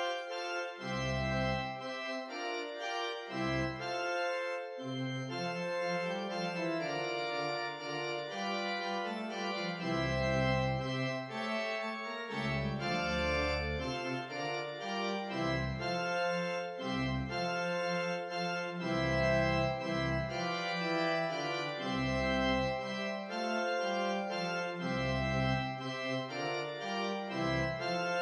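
Instrumental background music: held chords over a low bass line that comes and goes in regular pulses.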